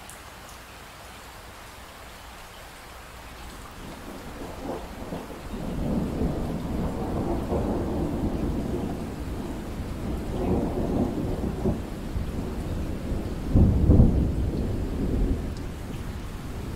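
Steady rain with a long roll of thunder that builds about four seconds in and rumbles on for around ten seconds, at its loudest shortly before it fades near the end.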